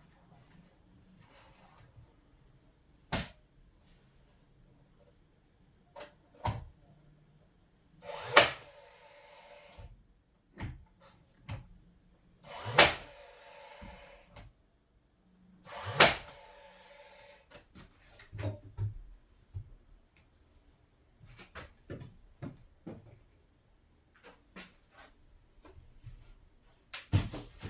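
Scattered knocks and clicks of wooden door-frame kit parts being handled and fitted together, with three louder strikes a few seconds apart that each ring on briefly.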